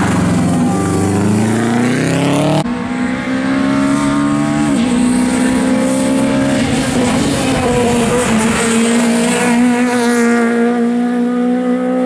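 Rally cars at full throttle on a tarmac stage: a Subaru Impreza's flat-four climbs in revs as it accelerates out of a bend, then abruptly gives way to another rally car's engine running at high revs, stepping down in pitch at two upshifts about 5 and 6.5 seconds in.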